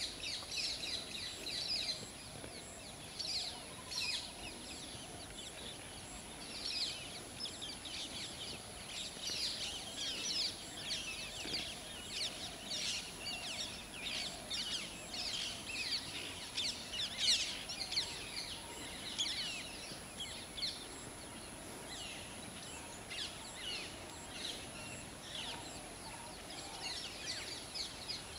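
Wild birds chirping and calling in a dense, continuous chorus of short high calls, with a faint steady high-pitched tone underneath.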